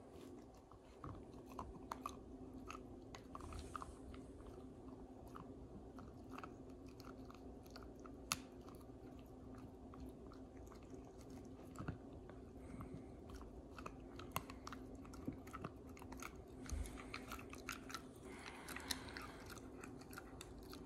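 Beagle puppy chewing a sweet potato treat: soft, irregular crunches and clicks of teeth on the chewy snack.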